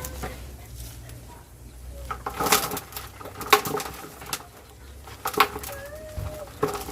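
Several short scrapes and rustles of soil being dug by hand and pushed over a galvanized metal sheet, while a dove coos softly in the background.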